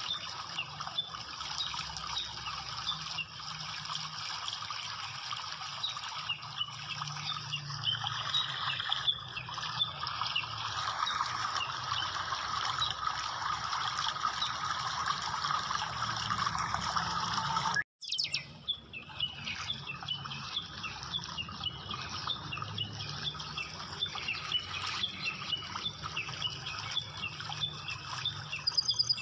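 Small birds chirping over a steady rushing, water-like background. The sound cuts out for a moment about two-thirds of the way through, then the same chirping and rushing carry on.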